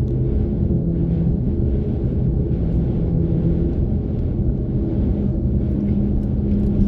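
Steady low rumble of a vehicle driving at road speed, with engine and tyre noise heard from inside the cab and a few steady droning tones underneath.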